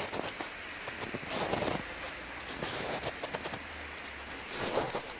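Footsteps crunching in snow: a few slow steps, each a short crackly crunch under the foot.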